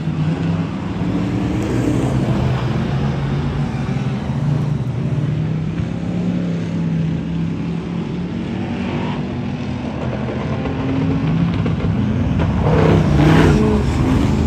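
Speedway stock cars racing on a dirt track, their engines running hard and steady. A car passes closer and louder about thirteen seconds in.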